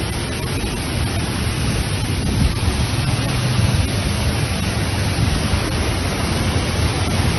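Muddy floodwater from heavy rain rushing down a steep slope, a dense steady noise of fast-flowing runoff.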